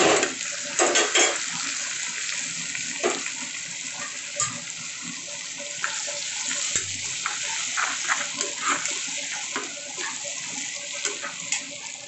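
Onions, green chillies and crushed garlic sizzling steadily in oil in a steel kadai, with a spatula scraping and clicking against the pan as it is stirred.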